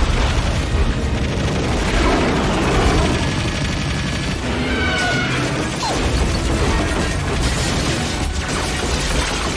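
Action-film soundtrack mix: an orchestral score over bursts of gunfire and crashing impacts, with a deep rumble underneath.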